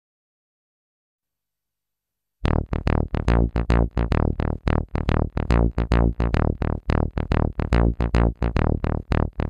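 Silence, then about two and a half seconds in a music track cuts in abruptly: a synthesizer playing quick, evenly repeated chords, about four a second, over a heavy bass.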